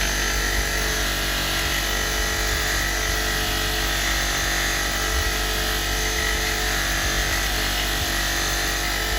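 Motor-driven wire brush wheel running steadily while a steel box spanner is held against it, the wire scrubbing the metal to clean it and show up any stamped markings.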